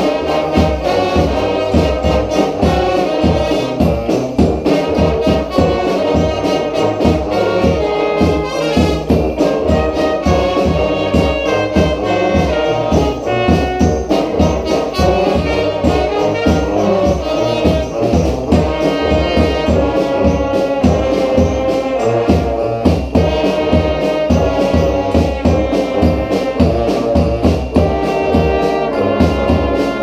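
A street brass band playing a New Orleans-style brass band tune together: several trombones, trumpets, saxophones and a sousaphone over a steady bass-drum and snare beat.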